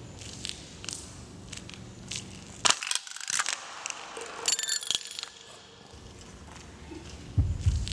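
Footsteps on gritty pavement, then a sneaker stomping on a drink can about three seconds in and crushing it, with crackling crunches for the next couple of seconds. A deep low thud comes in near the end.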